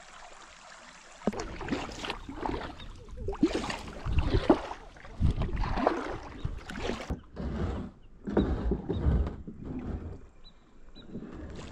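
Kayak paddling, starting about a second in: the paddle blades dip and pull through the water in irregular strokes, with splashes and drips.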